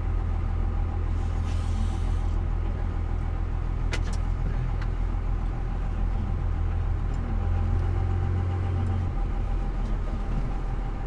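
Pickup truck's engine and road noise heard from inside the cab: a steady low drone whose pitch drops about nine seconds in, with a single sharp click about four seconds in.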